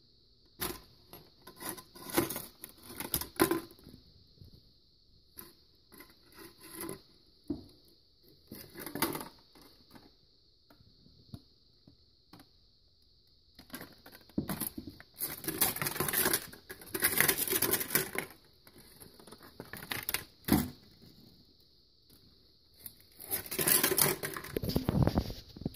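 Red plastic Solo cup crinkling and crackling in irregular bursts as a heated screwdriver is pushed through it and shoves it about. The bursts come thicker and louder in the second half.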